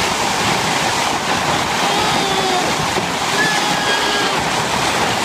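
Hail and heavy rain pelting down in a thunderstorm, drumming on a verandah roof and the lawn: a loud, steady noise with no let-up.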